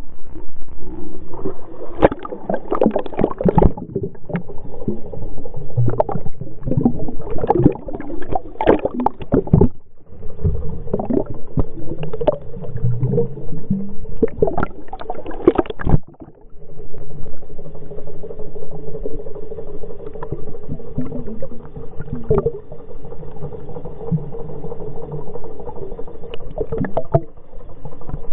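Muffled water sloshing and gurgling around a waterproof camera housing at and below the surface, with many knocks and splashes in the first half. After a brief dip about halfway through, a steadier low hum with occasional clicks.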